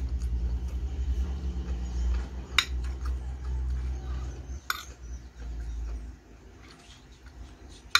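A metal spoon clinking against a ceramic plate twice, over a low rumble that stops about six seconds in.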